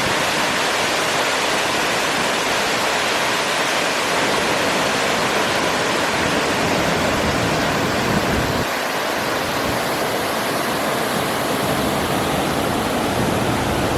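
Waterfall pouring: a loud, steady rush of falling water, with a slight change in tone about nine seconds in.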